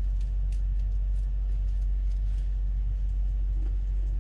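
Steady low rumble with a few faint light clicks over it.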